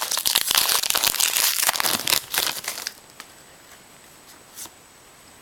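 Trading-card pack wrapper being handled and crinkled for about three seconds as a pack of football cards is opened, then it goes quiet.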